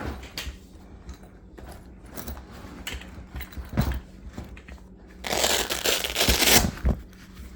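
Tools being pulled out of the pockets of a tool bag: small clicks and knocks of handling. About five seconds in comes a loud, rough rustle lasting nearly two seconds.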